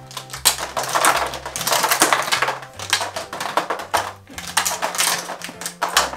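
Plastic magnetic alphabet letters clattering as they are pulled off a magnetic board and drop into its plastic tray: a dense run of quick clicks and rattles.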